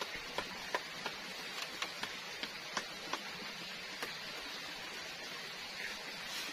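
Potatoes frying in oil in a pan over a wood fire: a steady sizzle with irregular sharp pops and crackles.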